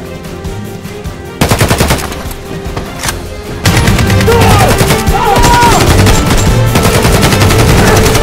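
Automatic rifle fire: a rapid burst of shots, about nine a second, starts about a second and a half in, over background music. From about four seconds in, a louder, denser stretch of gunfire and music follows.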